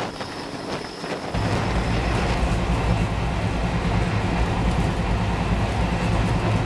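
Passenger train running at speed. First come wind buffeting the microphone and sharp wheel clicks over the rail joints, heard through an open doorway. About a second and a half in it changes abruptly to a louder, steady low rumble of the coach, heard from inside behind closed window glass.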